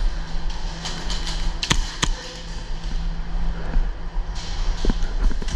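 Two sharp cracks of airsoft shots about a third of a second apart, amid scattered footsteps and knocks as the player moves, over a steady low hum.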